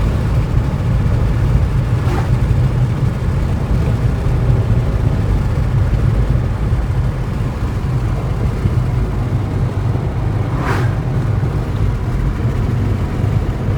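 Steady engine and road noise of a 2012 Ford Mustang Boss 302 being driven, its 5.0-litre V8 running at an even pace, heard from inside the car. A brief faint sound comes about eleven seconds in.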